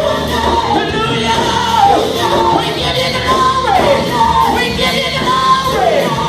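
Live church worship music: a band playing under a singer whose voice slides up and down between notes.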